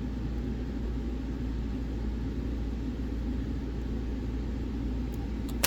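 Steady low background rumble, even in level, with a single sharp click near the end.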